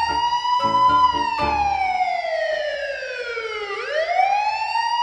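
A siren wailing. Its pitch rises over about a second, falls slowly for nearly three seconds, then rises again near the end.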